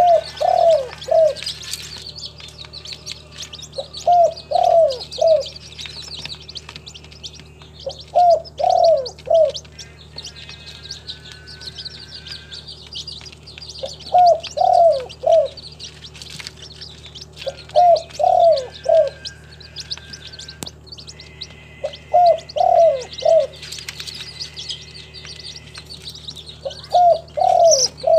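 Spotted dove cooing its song: seven three-note phrases, one about every four seconds. Small birds chirp high and quietly throughout.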